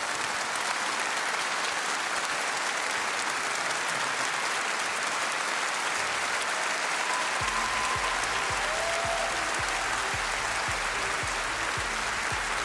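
A large audience applauding steadily. About seven and a half seconds in, music with a low, regular beat of two to three strokes a second comes in under the applause.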